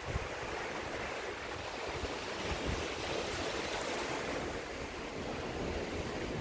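Sea surf washing onto a sandy beach: a steady rush of breaking waves that swells about halfway through. Wind buffets the microphone underneath.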